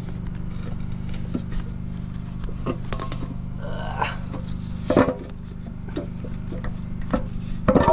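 Oil pan being pried and worked loose from a Honda D16 engine block: scattered metal clinks and scrapes, with a loud knock about five seconds in and another loud clank near the end as the pan comes free. A steady low hum runs underneath.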